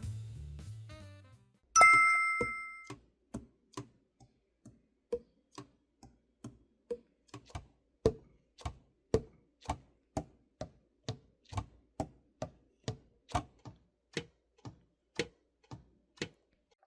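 A single bell-like ding that rings out for about a second, followed by steady clock-like ticking, a little over two ticks a second; music fades out at the start.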